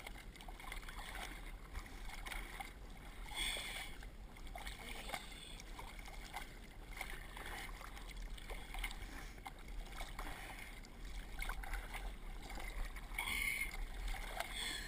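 Lake water lapping and gurgling against a windsurf board close to the microphone, with small splashes, two of them a little louder, about three seconds in and near the end.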